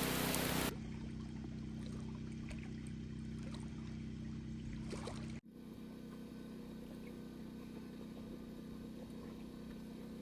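Heavy rain hissing and pattering, which cuts off abruptly under a second in. It gives way to a much quieter after-the-storm stretch of faint dripping and trickling water over a steady low hum.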